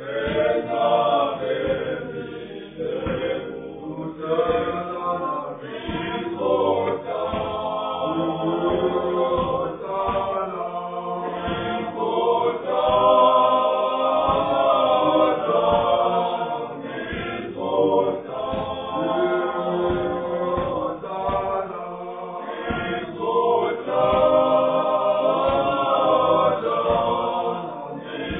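A church choir of many voices singing a hymn together.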